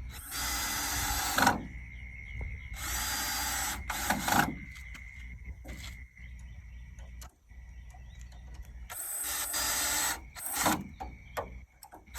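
Power drill driving screws in three short runs of about a second each, each followed by a brief blip.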